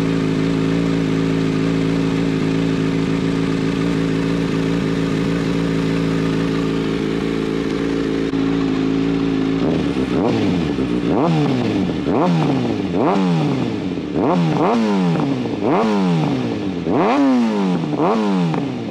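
2019 Kawasaki ZX-6R 636 inline-four with a Two Brothers aftermarket exhaust, idling steadily, then revved in a quick string of about ten throttle blips from about halfway through, each rising sharply in pitch and dropping back.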